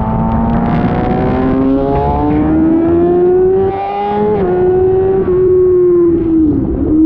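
Sport motorcycle engine accelerating hard, its revs climbing steadily, then dropping suddenly at a gear change about four and a half seconds in. It then holds and eases off, with a brief dip in pitch near the end.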